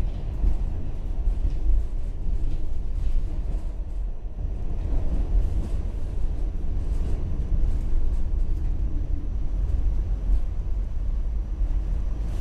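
Pullman-Standard R46 subway car heard from inside, its wheels and running gear rumbling steadily with faint scattered clicks as the train slows along a station platform.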